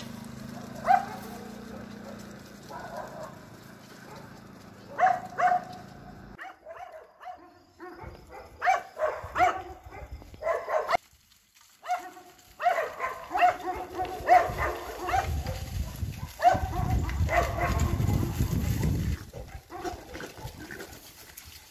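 Dogs barking again and again in quick runs, chasing a herd of wild boar, with a short break near the middle and a low rumble under the barking in the later part.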